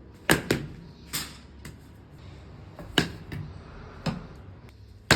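Sharp knocks from a cricket ball being struck with a bat and bouncing, several hits about a second apart, some in quick pairs, with a little echo.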